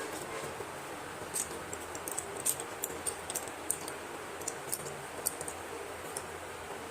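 Scattered light, crisp clicks and ticks from slate pencils and their packaging being handled, over a steady hiss.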